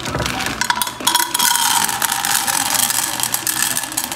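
Dry popcorn kernels poured from a plastic bag into a small saucepan with oil, rattling onto the metal as a dense stream of clicks that thickens about a second in.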